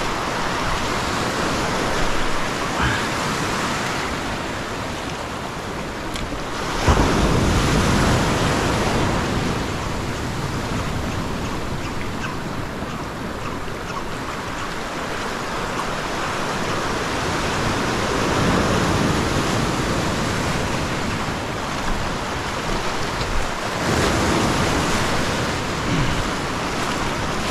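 Ocean surf breaking and washing over shoreline rocks: a continuous rush of whitewater, with a louder surge as a wave comes in about seven seconds in and another near the end.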